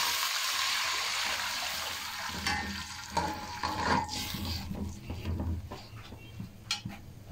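Water poured into hot ghee with browned onions and cumin, hissing and sizzling loudly and fading over the first couple of seconds. After that a slotted metal ladle stirs and scrapes in the aluminium pot, with scattered clinks.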